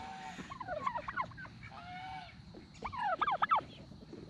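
Domestic tom turkeys gobbling: a quick run of falling notes about half a second in and another about three seconds in, with a single held, even-pitched call between them.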